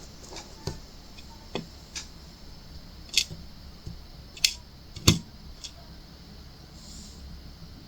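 Scattered small clicks and taps of a diamond painting pen setting resin drills onto a hard acrylic ornament. Three louder, sharper clicks fall between about three and five seconds in.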